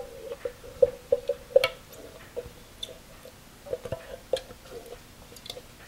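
Condensed tomato soup being scraped out of its can with a spatula and plopping into a roasting pan: an irregular run of soft wet squelches and small clicks.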